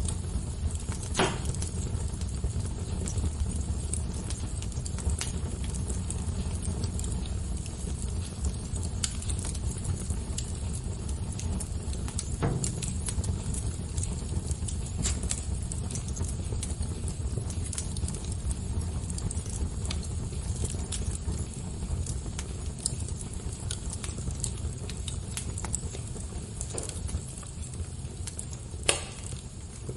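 Wood fire crackling: scattered sharp pops and snaps over a low steady rumble, with a louder pop near the end.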